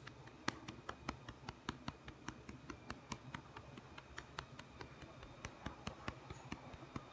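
A hand patting a Ragdoll cat's rump at the base of its tail, a steady run of even pats about three a second.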